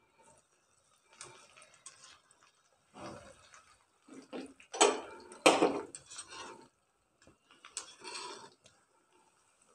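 Breadcrumbed chicken pieces deep-frying in hot oil while a wire spider skimmer is stirred through them: uneven bursts of sizzling and splashing with scrapes and clinks of the skimmer against the pan, loudest about five seconds in.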